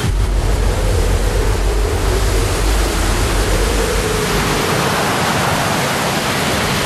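Storm wind blowing, with a faint wavering howl over a low rumble. The rumble eases off about four and a half seconds in, leaving a steady hiss.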